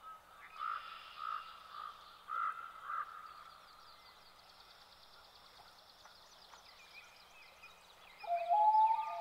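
Animal calls over quiet outdoor ambience. About five short pitched calls come roughly twice a second early on, then a faint high rapid trill runs on. Near the end comes a louder, longer call that steps up in pitch.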